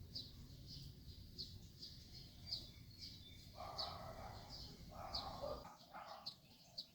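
Small birds chirping over and over in short high chirps, with a low rumble that stops about two-thirds of the way through and two short bursts of noise in the middle.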